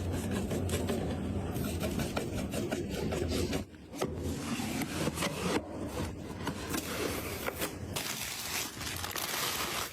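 Hands handling and fitting PC parts: rubbing and scraping with many small clicks, broken by a brief drop about a third of the way in and a sudden change to a brighter hiss near the end.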